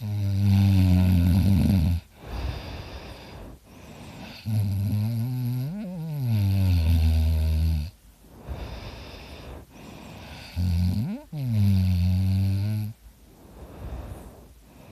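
A person snoring in sleep: three loud, low buzzing snores, roughly every five seconds, with softer breathing between.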